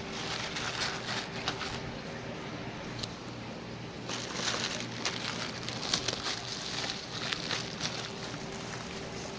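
Plastic packaging crinkling and rustling in irregular bursts with small clicks as aquarium filter parts are unpacked and handled.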